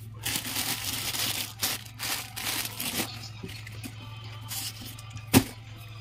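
Close rustling and handling noises right by the microphone, in bursts over the first three seconds and again briefly later, with a single sharp knock about five seconds in, over a steady low hum.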